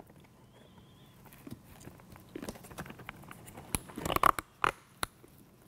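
Head straps of a PD100 full face respirator being pulled and cinched tight, with rubbery rustling, creaking and sharp little clicks of the buckles and mask. The noises start about two seconds in and are busiest near four seconds.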